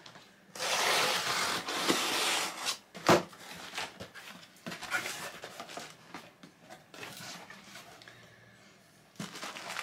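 Cardboard shipping box being torn open: a loud tearing rasp of about two seconds as the sealed top is pulled apart, a sharp knock of a flap, then the cardboard flaps and packaging rustling and tapping as they are handled.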